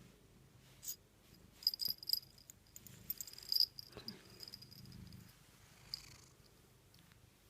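Tabby cat purring close to the microphone, a faint, slowly pulsing low hum. A cluster of sharp clicks, louder than the purr, comes between about one and a half and four seconds in.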